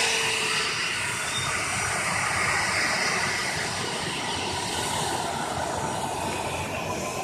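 A nearby airplane's engines running with a steady, loud rushing noise and a faint whine, loudest at the start and easing slightly.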